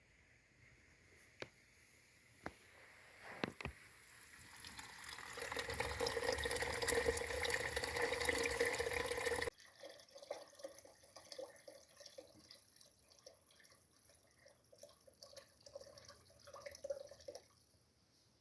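A few sharp knocks, then water pouring into a vessel for about five seconds, stopping abruptly. After that come light splashing and dripping sounds.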